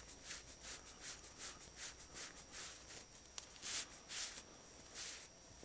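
Cloth rubbing along a coiled fork spring as it is wiped clean of oil: quick soft swishes, about three a second. A sharp click comes a little past halfway, and a few louder strokes follow it.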